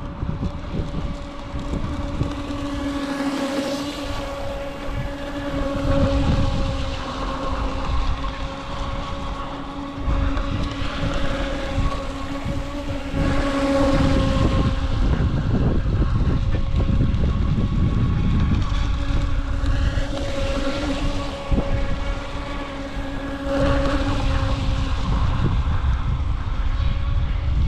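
UDIRC Arrow RC speedboat's electric motor running with a steady whine that swells and fades a little as the boat turns across the water. Heavy wind rumble on the microphone runs under it and grows louder about ten seconds in.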